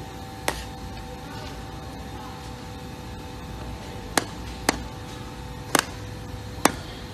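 A mallet knocking on SPC rigid-core vinyl click planks to tap their joints locked: five sharp knocks, one about half a second in and four more, irregularly spaced, between about four and seven seconds.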